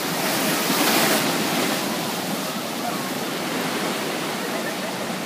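Heavy surf breaking and churning against a harbour seawall: a continuous rushing wash of water that swells about a second in.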